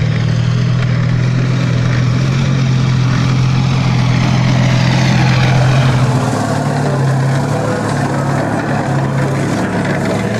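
T-55 tank's V12 diesel engine running with a steady low drone as the tank drives across the track. The drone changes about six seconds in.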